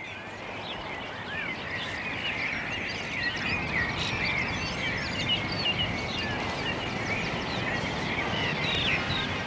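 Dawn chorus: many birds singing at once in short chirps and trills over a steady background hiss. It starts suddenly and grows louder over the first few seconds.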